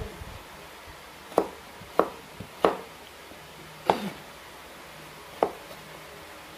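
Kitchen knife cutting a carrot on a wooden chopping board: five separate sharp cuts, unevenly spaced, each knife stroke striking the board.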